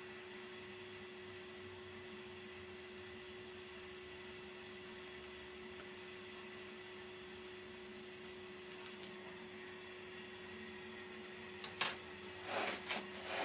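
Brazing torch flame hissing steadily while a radiator's side support bracket is joined with hard (high-melting) solder, over a low hum, with a few short clicks near the end.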